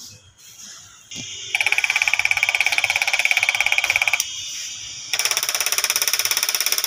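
Diesel fuel injector solenoids being fired by an electronic injector tester, giving a rapid, evenly pulsed electric buzz. It comes in two bursts: one starts about a second and a half in and runs about three seconds, and the second starts about a second later.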